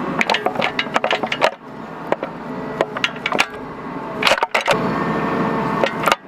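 Wood cracking and splintering in many sharp snaps as a huisache tree is broken and torn out by a Bobcat mini excavator, whose engine runs steadily underneath.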